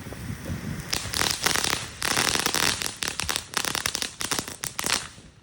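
Consumer ground firework crackling: a dense run of rapid sharp pops that starts about a second in and stops shortly before the end.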